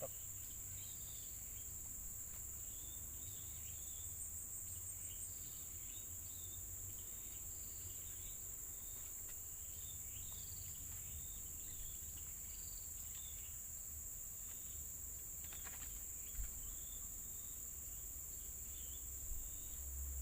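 Insects (crickets or cicadas) shrilling in a steady high-pitched chorus, with many short chirps over it and a low rumble underneath; one sharp knock about sixteen seconds in.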